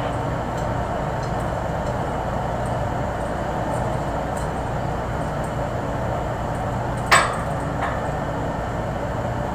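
Steady low machinery hum and rushing noise around a fuel pipeline valve manifold, with a sharp metallic clank about seven seconds in and a lighter knock just after.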